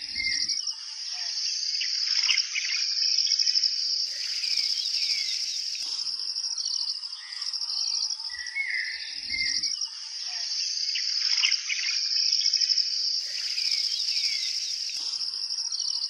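Forest ambience of insects trilling steadily on a high, fast-pulsing note, with birds chirping over it. The same stretch of birdsong comes round again about nine seconds later, as in a looped recording.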